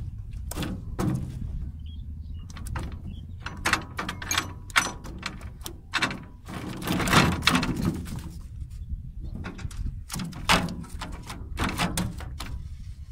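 Irregular knocks, clatters and splashing as a net fish trap is hauled and worked against the side of a boat's hull, with a longer spell of splashing and rattling about seven seconds in.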